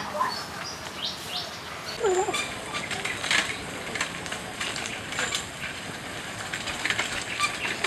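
Outdoor ambience: a steady hiss with many scattered short chirps and clicks, and a brief gliding voice-like sound about two seconds in.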